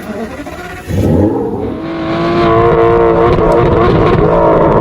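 Mercedes-AMG C63 engine revving: about a second in it climbs sharply in pitch, then holds loud and steady at high revs.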